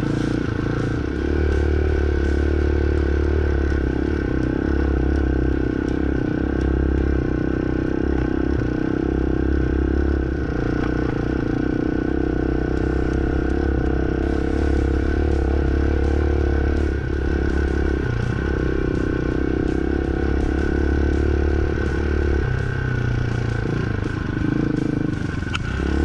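Hawk 250 dual-sport motorcycle's single-cylinder engine running at a steady cruising throttle, with light rattling over it. The engine eases off briefly a couple of times near the end.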